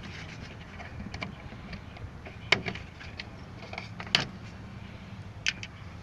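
Sharp plastic clicks and snaps as the grille's plastic push-pin retainers on a 2016 Toyota Tacoma are pried loose, two loud ones about two and a half and four seconds in and a smaller one near the end.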